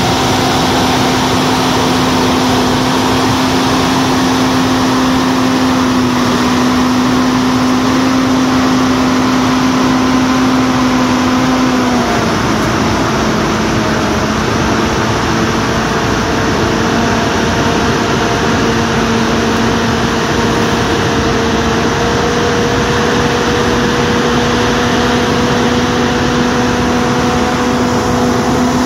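Heavy-haul transporter's engine running steadily at a constant speed, with a steady whine over it that drops slightly in pitch about twelve seconds in.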